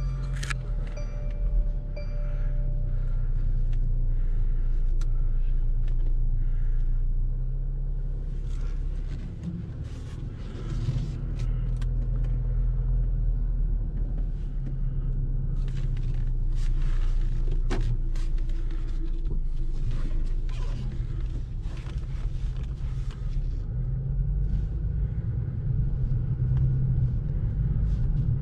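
Mercedes-Benz C300 (W205) turbocharged four-cylinder engine running steadily at low speed, heard from inside the cabin as the car reverses and then drives slowly forward on its first test drive after a rebuild that included a new tie rod, with patches of road noise in between.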